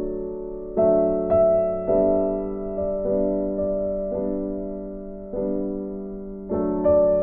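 Background music: slow, gentle piano chords, each struck and left to fade, a new chord about every second.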